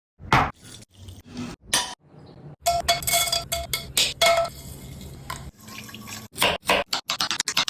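Kitchen utensils knocking and scraping against metal pots and bowls in a quick series of clinks. A few of the strikes ring briefly, like metal cookware being hit.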